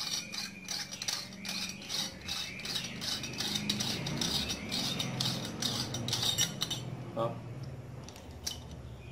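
Threaded stainless steel mounting fitting being unscrewed from the base of a kitchen faucet: rapid metallic clicking and rattling, which dies down about seven seconds in as the fitting comes off.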